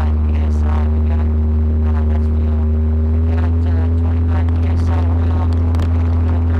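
Steady low drone of the 1977 Ford Ranchero's 351 Windsor V8 running, with its engine note rising slightly about three seconds in.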